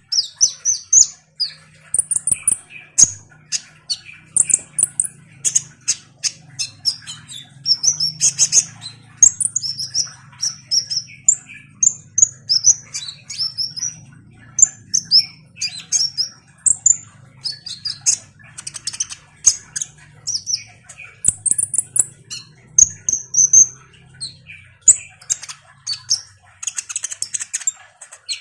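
Male kolibri ninja (Van Hasselt's sunbird) singing a rapid, continuous chatter of high, thin chirps and short whistles.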